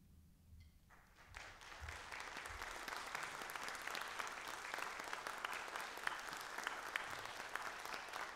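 Audience applause: after a moment of near silence it starts about a second in, builds quickly and settles into steady clapping.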